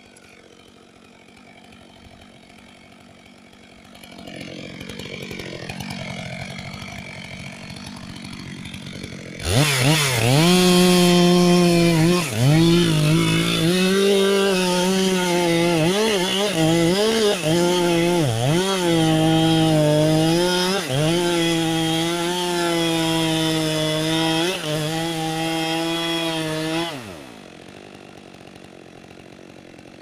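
Two-stroke chainsaw revved to full throttle about a third of the way in and cutting into the base of a standing tree trunk, its pitch dipping again and again as the chain bites into the wood. Near the end it drops back to idle, then revs briefly once more.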